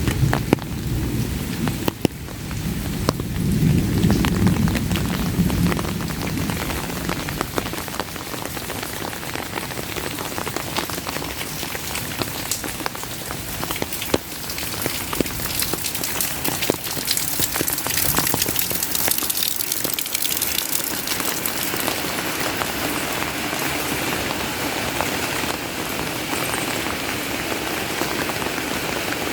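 Heavy rain falling, with many close drops ticking on an umbrella. A low rumble of thunder fills the first few seconds, swelling about four seconds in, then dies away, leaving the steady rain.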